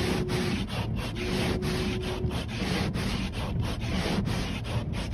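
Windshield wipers scraping back and forth over a film of ice on the windshield, heard from inside the car, after a spray of washer fluid. A steady mid-pitched whine comes and goes twice in the first half, the washer fluid pump spraying.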